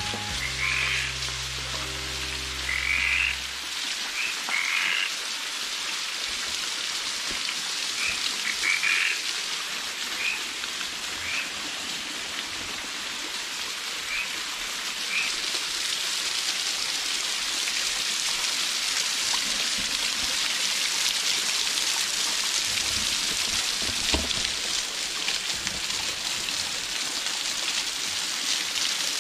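Small waterfall splashing onto rocks and into a shallow pool, a steady rush that grows louder about halfway through. Short frog croaks repeat a dozen or so times over the first ten seconds or so.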